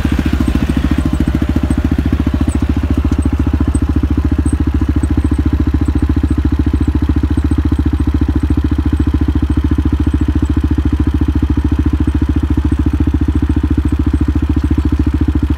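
A vehicle engine running steadily and close at an even speed, with a fast regular firing beat that does not rise or fall.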